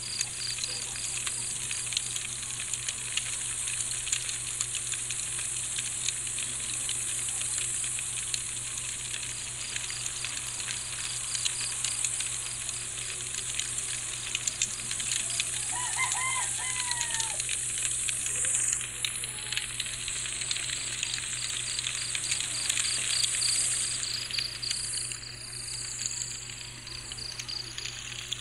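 Campfire crackling steadily with many small pops, over crickets chirping in rapid pulses that come and go. A short bird call sounds about halfway through.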